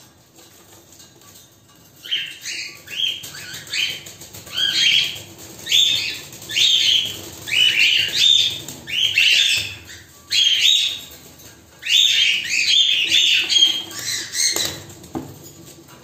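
Cockatiels calling: a long run of short, repeated chirping calls, roughly one to two a second, starting about two seconds in and stopping shortly before the end.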